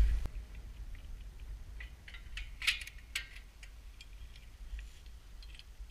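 Metal climbing hardware clinking and knocking against the steel lattice tower as the climber moves, a scattering of short clicks with the loudest cluster about halfway through, over a low wind rumble on the microphone.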